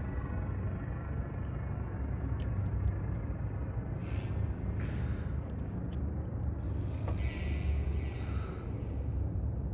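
A deep, steady rumble with a few sharp clicks and short hisses over it.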